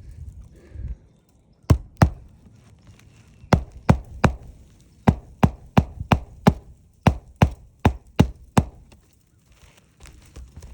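Hand hammer blows, about fifteen sharp strikes in short runs of two to five, some three a second.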